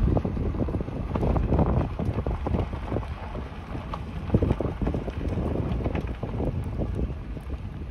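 A vehicle rolling along slowly with a steady low rumble and irregular knocks and rattles, and wind buffeting the microphone.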